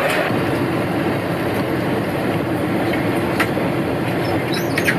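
Steady running noise of a rail vehicle in motion, with a few faint clicks.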